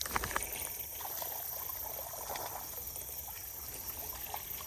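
Light water splashing and trickling at the edge of a pond, with a few sharp clicks right at the start. Insects chirr steadily and high-pitched throughout.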